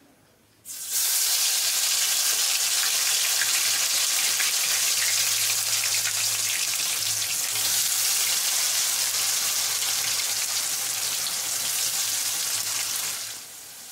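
Batter-coated potato pieces going into hot mustard oil in a kadhai, setting off loud, steady deep-frying sizzle. It starts suddenly about a second in and eases off near the end.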